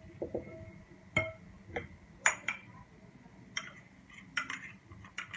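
Small bowls clinking against a glass mixing bowl as flour is tipped and tapped into egg batter, with a wire whisk in the bowl: about eight sharp, scattered clinks.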